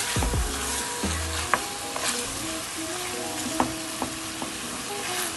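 Pork pieces sizzling in hot oil and caramelized brown sugar in a pot as they are stirred, with a few sharp clicks of the utensil against the pot.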